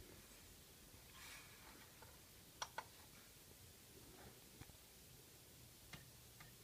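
Near-silent room with one soft breath from a sleeping baby a little over a second in. Near the middle come two sharp clicks close together, the loudest sounds, followed by a few faint ticks.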